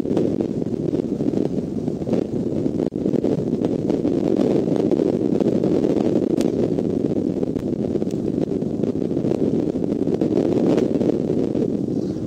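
Steady wind rushing over the eagle-nest camera's microphone, an even noise with no distinct calls, plus a few faint ticks.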